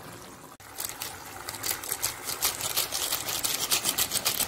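Fish curry gravy simmering in a pan, bubbles popping in a quick, fairly even run of about five pops a second, starting about a second in.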